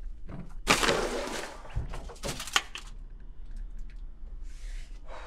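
Handling noises: a loud rustle about a second in, a few sharp clicks around two seconds in, and a softer rustle near the end.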